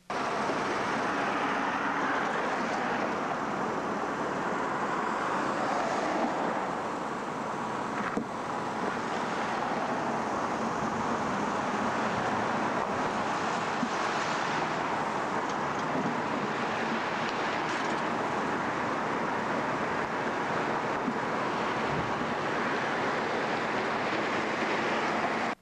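Steady rushing outdoor noise picked up by a camcorder microphone, swelling and easing every several seconds, with a short knock about eight seconds in.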